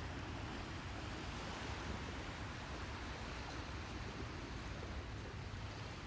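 Steady rushing noise of wind and sea surf at the shore, even throughout with no distinct events.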